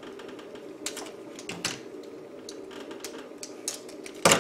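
Clip-on ferrite toroid chokes being unsnapped from a cable and set down on a desk: a run of sharp plastic clicks and clacks at irregular intervals, the loudest near the end. A faint steady hum runs underneath.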